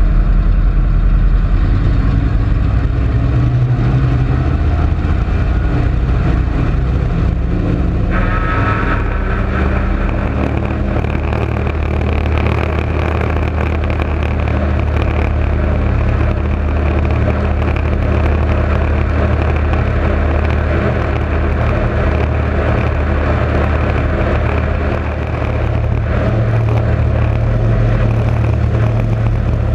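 Douglas C-47's twin radial engines rising to takeoff power about eight seconds in, then running loud and steady with rushing air as the aircraft accelerates down the runway on its takeoff roll.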